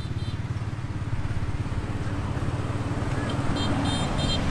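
Motorbike engine running steadily at low speed as the bike rolls slowly. A few short high chirps sound near the end.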